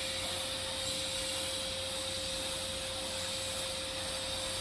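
Electric welding in progress: a steady hiss with a constant high hum, with no change in level.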